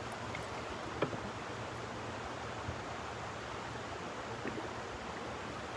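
Steady rushing of river water, with one short sharp knock about a second in.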